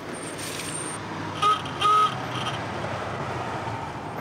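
Vintage Rolls-Royce motor car running slowly as it draws up, with its horn sounded in two short toots about one and a half seconds in and a fainter third just after.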